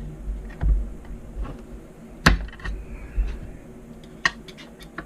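Plastic parts of a 3-in-1 livestock tank de-icer being handled as its tabs are worked: scattered sharp clicks and knocks, the loudest about two seconds in and a quick cluster near the end.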